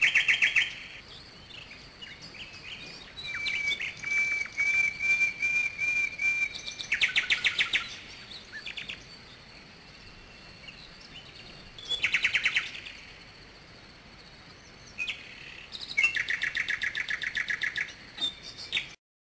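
Recorded songbird singing in separate phrases: fast trills alternating with a run of evenly spaced whistled notes, with short pauses between phrases. It cuts off abruptly near the end.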